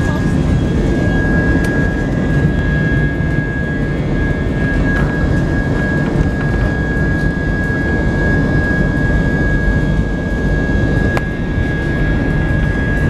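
Jet airliner's engines heard from inside the cabin on the takeoff roll: a steady, loud roar with a high, steady whine over it.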